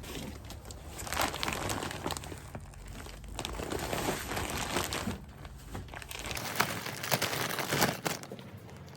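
Crinkling and rustling in irregular bursts with small crackles, as of something being handled by hand.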